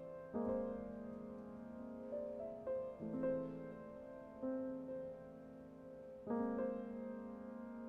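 Soft piano playing slow, sustained chords, with a new chord struck every second or two, as an instrumental passage of a fusion gugak jazz piece.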